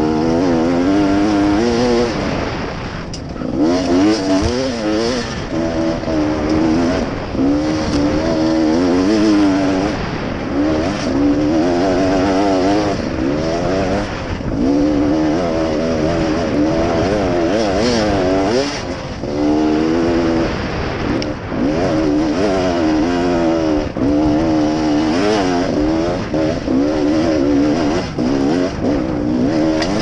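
Off-road dirt bike engine being ridden over a rough trail, its pitch rising and falling again and again as the throttle is opened and closed, with brief dips where it drops off.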